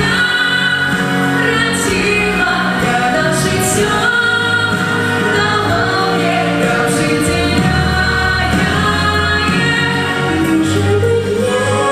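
A song with sung vocals and choir-like backing voices over a full instrumental accompaniment, with long held notes.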